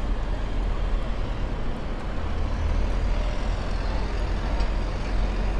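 Steady city road-traffic noise: a continuous low rumble of passing vehicles.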